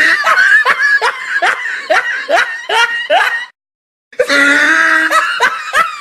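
Laughter: a string of short ha-ha pulses, about three a second. It stops dead about three and a half seconds in and starts again half a second later.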